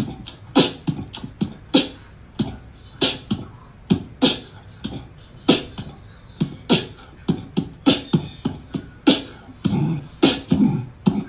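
Rhythmic percussive beat: sharp hits with low thumps, roughly two a second.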